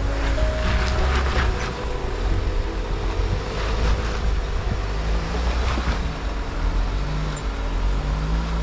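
A 4x4's engine running at low revs with a steady low rumble as it crawls along a rough trail, with a few knocks about a second in and again near the middle.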